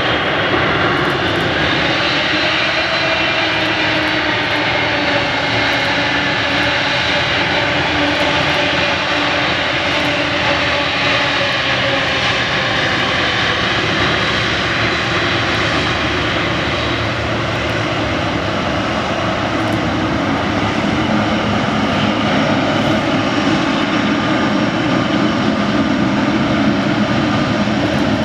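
Boeing 777-300ER's twin GE90-115B turbofans running at low thrust while the airliner taxis: a steady jet whine with gently gliding tones over a broad rush, growing a little louder near the end.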